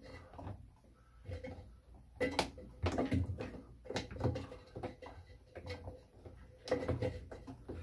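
Handling noise as a new rubber bellow gasket is worked by hand onto the drum opening of a Whirlpool Duet front-load washer: irregular clicks, knocks and low thuds of rubber and fingers against the plastic and metal rim, with scraping between them.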